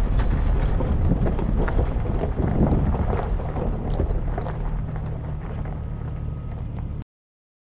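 Jeep Wrangler TJ driving over a rocky dirt track: steady engine and tyre rumble with stones crunching and knocking under the tyres, and wind on the microphone. It eases down slightly and cuts off suddenly about seven seconds in.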